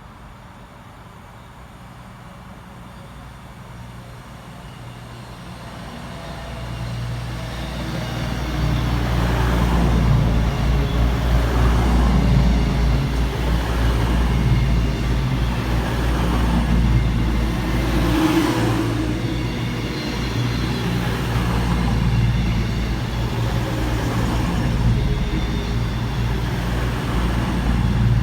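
A train approaching and running past on the main line. It builds from a distant rumble to a loud, steady low rumble over the first nine seconds or so, with a clatter of wheels on the track swelling every couple of seconds.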